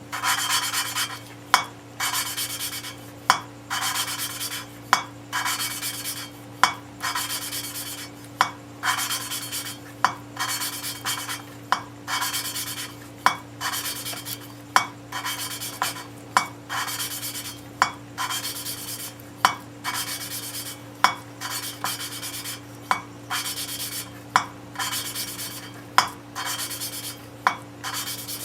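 Valve lapping on a Ford 302 cylinder head: the valve is turned back and forth against its seat with lapping compound, making a gritty scraping rasp. Each stroke is broken by a sharp click about every second and a half as the valve meets the seat.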